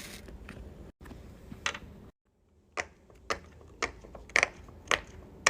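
Silicone Pop-It bubbles being pressed in and popping one after another, sharp pops about two a second.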